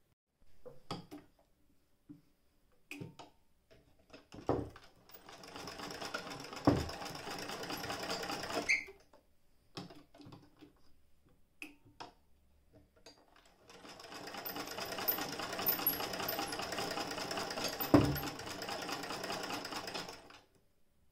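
Vintage Jones Model D-68 hand-crank sewing machine stitching, in two runs of about four and about seven seconds. Scattered clicks and knocks of handling the machine come before and between the runs.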